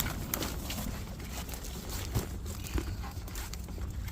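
Rain falling, with scattered drops ticking sharply and irregularly close by over a steady low rumble.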